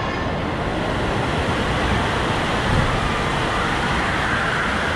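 Steady rushing roar of water running down a raft water slide, blended with the echoing din of a large indoor waterpark hall.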